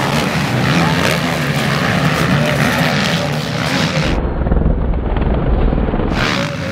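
Several MX1 motocross bikes racing past at full throttle, their engines overlapping. About four seconds in, the sound turns dull and deep for around two seconds, with the high end cut away, and then the full engine sound comes back.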